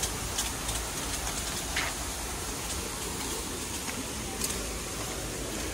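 Steady rushing of a rocky stream, an even hiss with a few faint taps.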